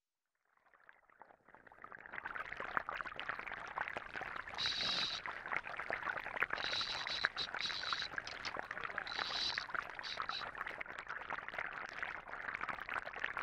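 Bubbling, gurgling water sound that fades in over the first two seconds, with short bursts of a high tone several times between about four and ten seconds in.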